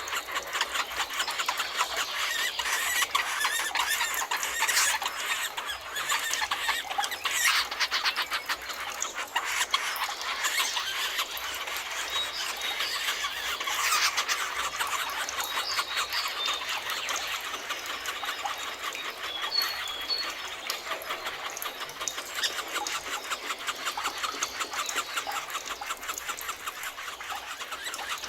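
Dense chorus of birds chirping and chattering in rapid, overlapping calls, with a few short high whistled notes in the middle.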